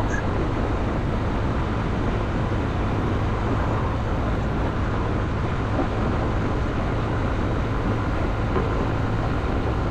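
Steady wind rush on the microphone while riding a Honda CB125F motorcycle at road speed, with the 125cc single-cylinder engine's even drone underneath.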